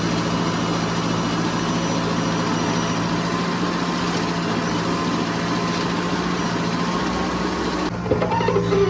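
Heavy diesel engine running steadily at a constant speed. About a second before the end the sound cuts abruptly to a wavering pitched tone.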